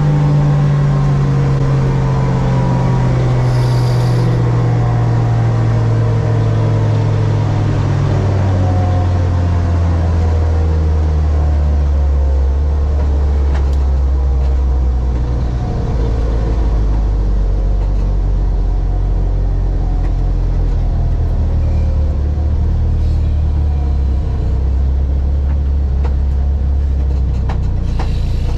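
Car engine running steadily, its pitch sinking slowly over the first ten seconds or so as the revs drop, then holding at a low, even note.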